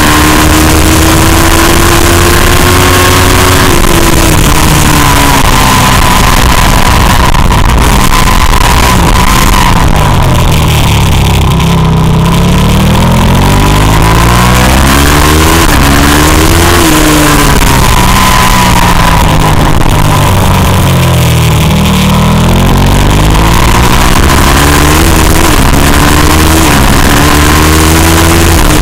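Race motorcycle engine at full throttle on a hill climb, its pitch climbing in steps through upshifts and dropping back as the rider brakes and downshifts for bends, several times over. Wind rushes over the microphone.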